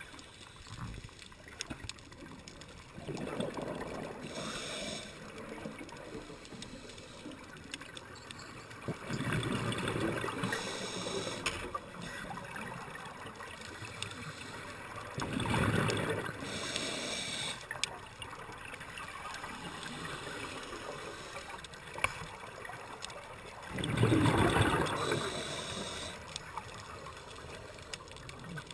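Scuba diver breathing through a regulator, heard underwater through a camera's waterproof housing: four bursts of exhaled bubbles several seconds apart, the loudest near the end, over a steady low underwater hiss.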